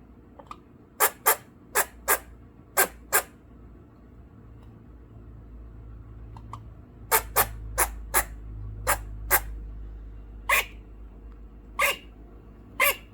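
Eastern grey squirrel giving sharp alarm barks in quick runs of two to six, about fifteen in all, with short pauses between the runs. These are the alarm calls it makes at crows.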